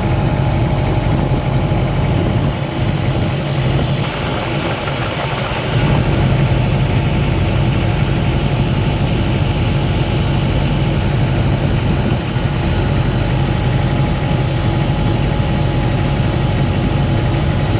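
Motorboat engine running steadily, a low drone that gets louder about six seconds in and stays there.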